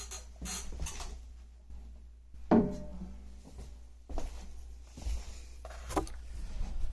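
Handling noise: a series of knocks and thumps, the loudest about two and a half seconds in with a brief ring, over a steady low hum.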